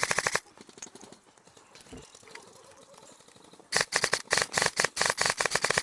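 Airsoft gun firing on full auto: a short burst of rapid, even shots ends just after the start, then several bursts follow one after another over about two seconds near the end.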